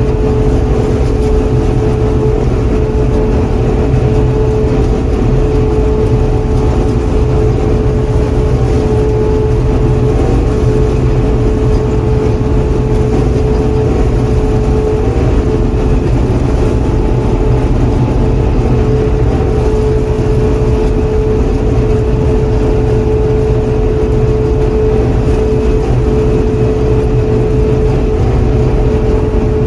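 John Deere 4400 combine running steadily: a constant low engine drone with a steady whine held on one pitch above it.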